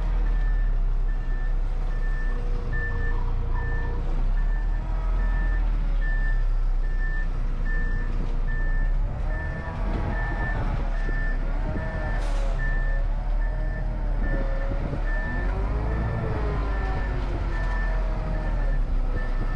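Concrete mixer truck's backup alarm beeping steadily in evenly spaced beeps as the truck reverses, over its diesel engine running. A brief hiss a little past halfway.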